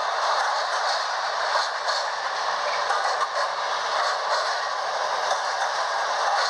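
Märklin H0 model freight train's wagons rolling past on the track: a steady rattling hum of small wheels on rails, with light irregular clicks.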